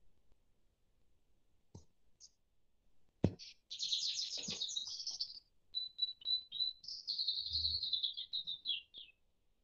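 A songbird singing a long, high warbling song of rapid chirps and trills, with a short run of even single notes in the middle; two sharp clicks come just before it starts.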